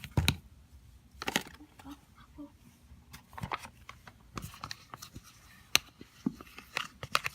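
Irregular clicks, taps and scrapes of a utensil against a bowl as corn flour is stirred into hair conditioner.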